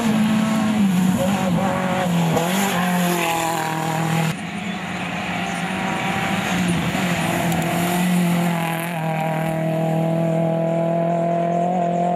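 Rally car engines running at high revs on a gravel stage, the pitch dipping and recovering a few times as the driver works the throttle and gears. About four seconds in the sound changes abruptly to another car's engine running steadily.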